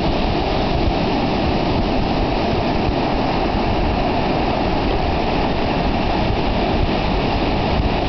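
Ocean surf breaking on the shore, a steady rush of noise.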